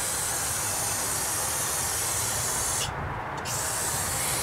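Aerosol brake cleaner spraying in a long jet onto a drum brake backing plate, washing off brake dust and rust deposits; the spray stops for about half a second near three seconds in, then starts again.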